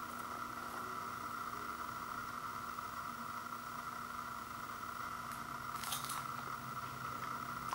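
Steady background hum, with a brief crunch about six seconds in as a piece of cheddar cheese flavored popcorn is bitten.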